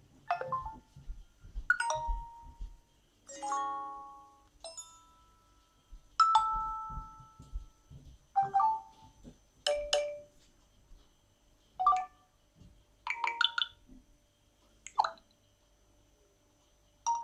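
Nokia 7 Plus stock text message alert tones played one after another through the phone's speaker: about ten short chimes and jingles, each dying away before the next starts a second or two later.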